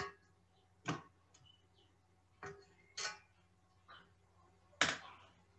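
About six faint, short knocks and scrapes of a spatula against a mixing bowl of whipped shea butter lotion, spaced irregularly.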